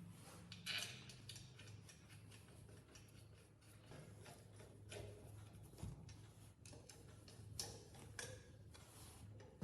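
Faint, scattered light clicks and ticks over a low steady hum.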